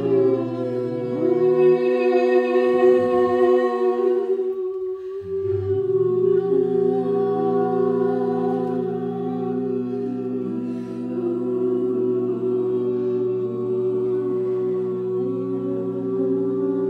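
Several voices singing long held notes together in a sound circle, layering into a steady chord of sustained tones with a few slow pitch glides. The sound thins briefly about five seconds in, then the held notes fill back in.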